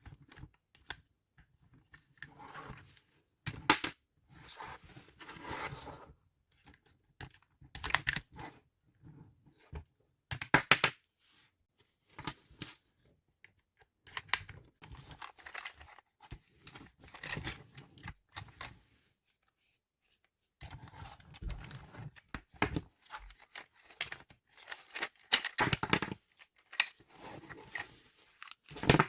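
Close-miked handling of buildable toy parts and packaging: irregular clicks, taps and rustling, with a few louder sharp clicks or snaps.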